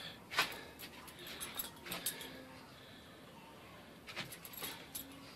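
Metal tags on a Yorkshire terrier's collar clinking and jingling in a few short bursts as the dog paws and noses at the floor.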